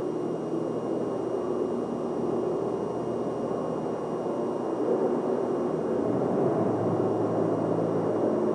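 Steady background noise of a large aircraft exhibition hangar, with no single distinct event; it swells slightly over the last few seconds.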